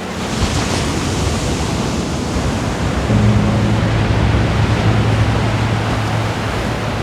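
Atlantic ocean surf washing onto a beach, a steady rush with a brighter hissing wash in the first second. Low held tones join underneath from about three seconds in.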